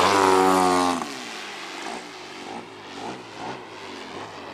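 Gas engine and propeller of a 39% Laser Z2300 giant aerobatic RC airplane running at high power. Its pitch falls over the first second, and then it drops away sharply to a fainter drone as the plane moves off.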